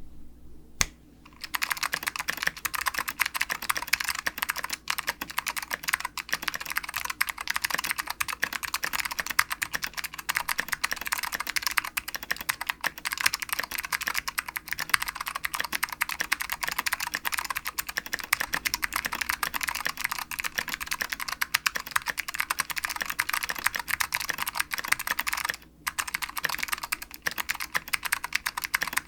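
Continuous fast typing on a custom mechanical keyboard with Alps SKCM White switches, a 1.2 mm carbon fibre plate and Tai Hao Cubic keycaps: a dense stream of key clicks. It starts after a single click about a second in and has a brief pause near the end.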